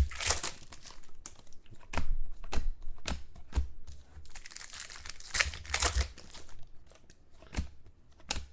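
Trading card packs being handled and torn open, the wrappers crinkling, with the cards giving irregular sharp clicks and snaps as they are shuffled through.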